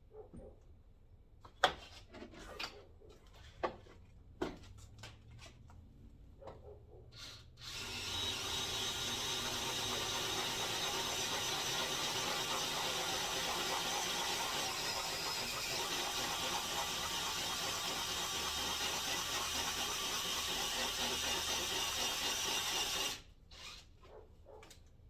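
Power drill running steadily for about fifteen seconds, drilling out a hole to take a bigger fastener. It stops suddenly near the end. A few sharp clicks and knocks of handling come before it starts.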